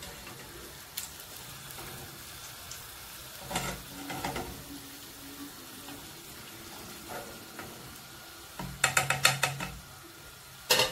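Seeni paniyaram deep-frying in hot oil in a pot, a low steady sizzle. A metal spatula clacks against the pot: a few knocks around four seconds in, a quick run of clacks near nine seconds, and one loud knock just before the end.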